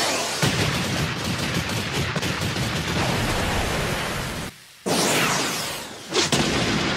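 Anime fight sound effects of a rapid barrage of punches: a dense, fast run of hits, breaking off briefly a little past halfway, then going on.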